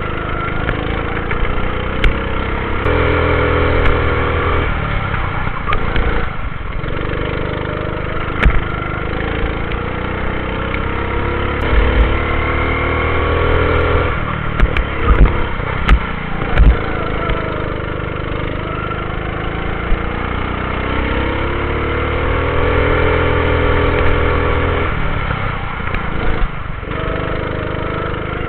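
Rental go-kart engine heard from on board the kart, its revs climbing along the straights and falling away into the corners several times. A few sharp knocks come about halfway through.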